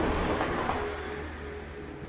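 Rushing vehicle noise that is loudest near the start and slowly fades, as a vehicle goes by.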